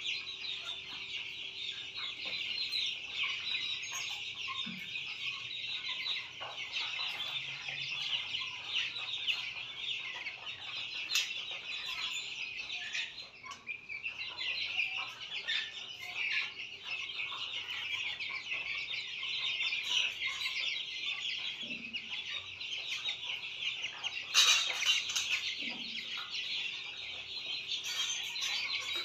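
A flock of 32-day-old Australorp chicks peeping continuously, many high-pitched calls overlapping, with a brief louder flurry about three-quarters of the way through.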